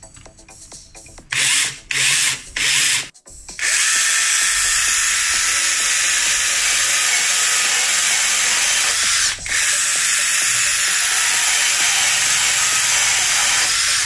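Mini chainsaw attachment on a 21V cordless multi-tool: the chain runs in three short bursts, then runs steadily while sawing through a wooden board, with one brief dip about two-thirds of the way through.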